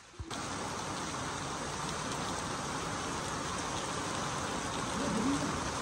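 Heavy rain pouring down onto a stone-paved rooftop terrace: a steady, even hiss of downpour that starts suddenly a moment in.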